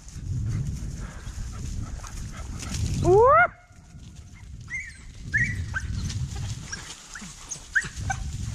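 Deer hounds yelping: one loud, sharply rising yelp about three seconds in, then several short, fainter yelps over a low rumbling background.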